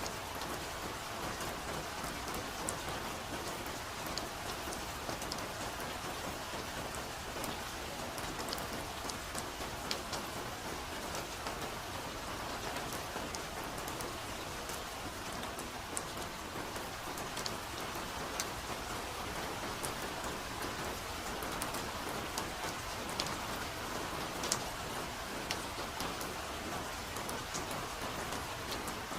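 Steady soft rain falling in a forest, an even hiss with many separate drops ticking on surfaces.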